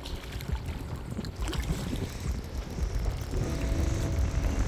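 Wind buffeting the microphone as a low rumble, with a few light knocks. A faint steady hum comes in about three seconds in.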